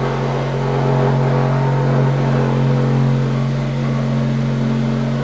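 Steady, loud mechanical drone with a low hum, from a motor or machine running continuously.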